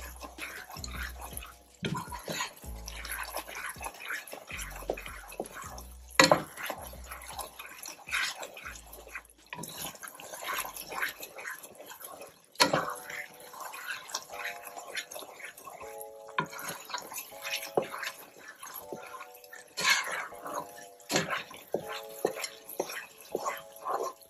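Spoon stirring risotto rice and broth in a pan, with irregular clicks and scrapes, over background music. The music has a low bass line in the first half and a repeating melody of short notes in the second.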